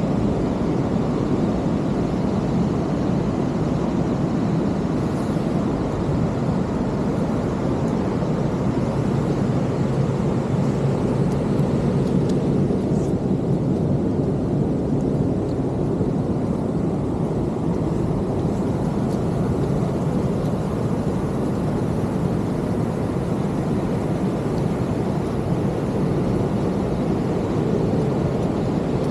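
Steady low rush of heavy ocean surf breaking on the beach, with no distinct individual sounds standing out.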